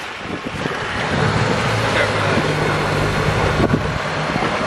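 Pontoon boat under way: its motor runs with a steady low hum that comes in about a second in, over wind buffeting the phone's microphone.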